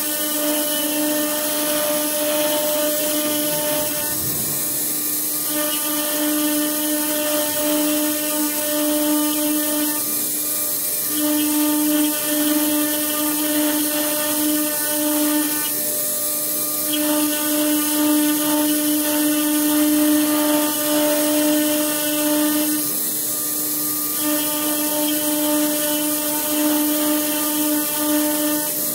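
CNC router spindle running with a steady high whine as its bit engraves into blue melamine-faced particleboard. The whine falters briefly about every six seconds.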